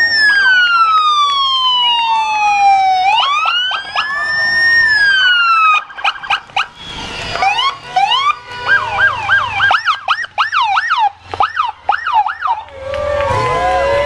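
Police escort sirens: a slow wail rising and falling over a few seconds, switching about six seconds in to a fast yelp sweeping up and down several times a second, which stops shortly before the end.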